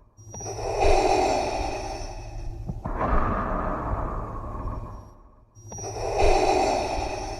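Darth Vader's mechanical respirator breathing: a long hissing breath in and out through the mask, a brief pause about five seconds in, then the next breath starting.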